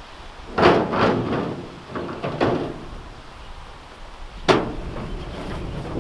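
Stainless steel automatic chicken plucker being shifted and set in place on its base: a few metal knocks and clunks, a cluster about half a second in, more around two seconds, and one sharp knock about four and a half seconds in.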